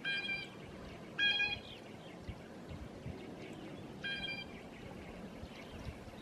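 Blue jays giving three short, harsh calls: one at the start, a louder one about a second in, and another about four seconds in. Beneath them is the faint peeping of a feeding flock of grosbeaks.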